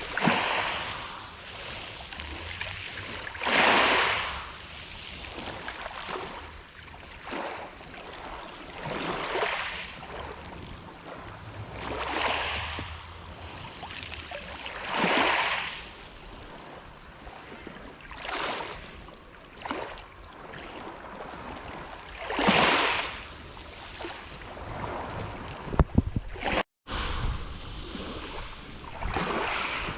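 Black Sea waves breaking on the shore, one swell of surf every three to four seconds, with low wind rumble on the microphone. The sound drops out briefly near the end.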